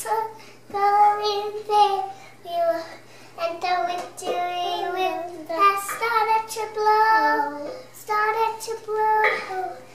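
A young child singing unaccompanied: high-pitched sung phrases with held notes and short breaks between them.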